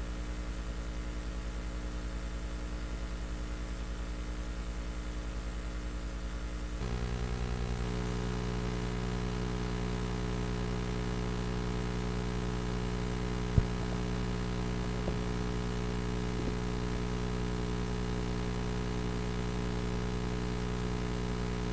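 Steady electrical mains hum with a stack of overtones, its tone shifting slightly about seven seconds in; a single sharp click sounds about halfway through.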